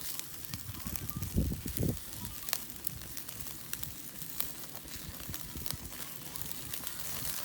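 Wood fire burning in a stainless steel fire pit, crackling with scattered sharp pops, with two dull low thuds about a second and a half in.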